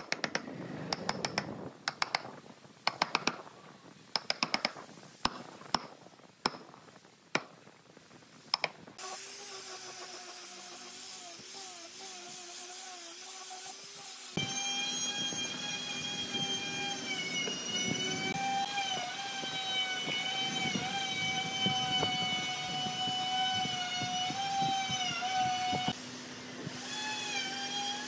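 A series of sharp knocks for about the first nine seconds, then a small electric power tool starts up and runs with a steady whine. About halfway through the whine jumps to a higher pitch, and it dips briefly near the end.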